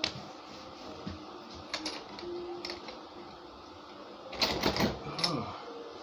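Metal door lock with a broken handle being worked by hand, clicking and rattling, with a burst of sharp clicks about four and a half seconds in.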